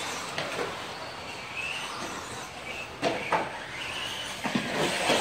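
RC stadium trucks racing on a dirt track: a steady hiss of running trucks with motors whining briefly up and down in pitch several times, and a few sharp knocks in the second half as trucks land or strike the track.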